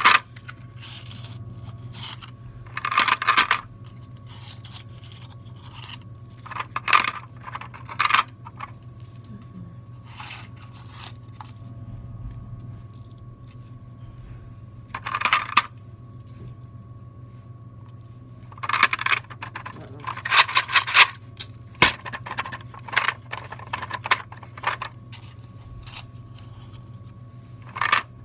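Nickels being fed into a vending machine's coin mechanism to fill its low nickel tube, clinking in irregular bunches with pauses between them. A steady low machine hum runs underneath.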